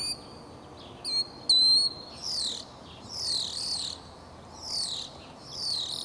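European starling singing: a few short clear whistles and one longer held whistle, then four raspy, wavering warbled phrases about a second apart.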